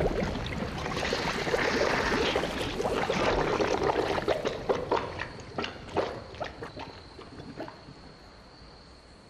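Swamp water gurgling and sloshing as a car sinks into it, the water closing over the car's roof. About four and a half seconds in, the churning gives way to scattered popping bubbles, which thin out and fade as the car goes under.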